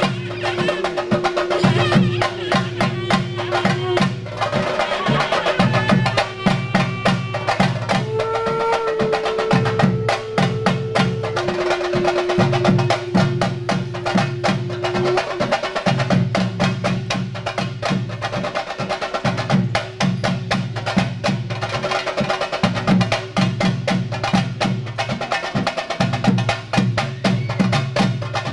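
Traditional Kerala theyyam percussion ensemble: chenda drums beaten with sticks in a dense, fast rhythm, with a reed pipe holding long notes that step up and down in pitch during the first half.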